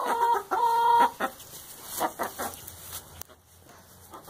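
A hen being handled gives loud drawn-out squawks in the first second, then a quick run of short clucks that fades.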